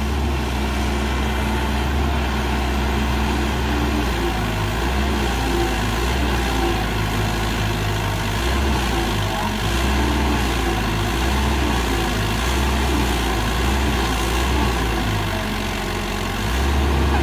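Sumitomo SH120 A1 excavator's diesel engine running under load as the bogged-down machine struggles in the pit, its drone rising and falling in strength and growing louder near the end.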